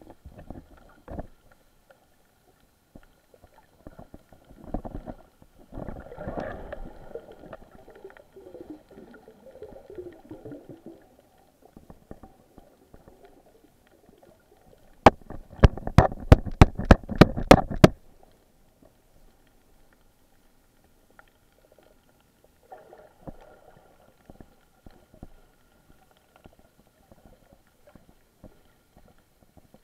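Muffled underwater sloshing and rustling from a snorkeler swimming with the camera. About halfway through comes a run of about a dozen sharp clicks, roughly four a second, lasting some three seconds.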